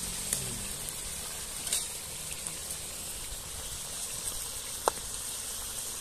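Curry boiling in a steaming pot over a wood fire, just after yogurt has been added: a steady bubbling hiss. A few sharp clicks stand out, the loudest about five seconds in.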